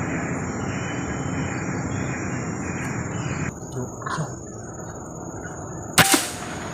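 A single sharp shot from a .177-calibre PCP air rifle about six seconds in, over a steady background hiss and a thin high steady tone.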